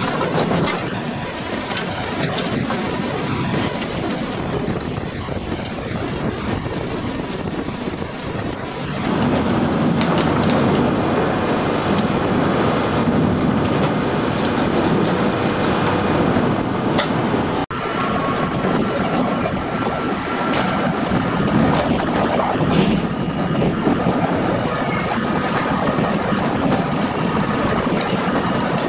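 Log-yard machinery running steadily: hydraulic log cranes working their grapples among loaded log trucks, with a few sharp knocks of wood. The noise grows louder about nine seconds in.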